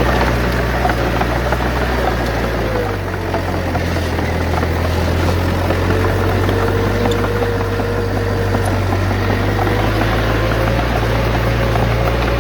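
Heavy diesel engine of earthmoving machinery running steadily. Its low note shifts about three seconds in, with a faint wavering whine above it.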